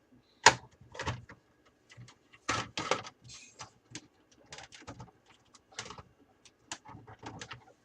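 Irregular clicks, knocks and scrapes of a 4-port USB front-panel unit being pushed and wiggled in a PC case's drive bay, jamming on small locking blocks in the bay. The sharpest knock comes about half a second in, with a cluster of louder knocks around the middle.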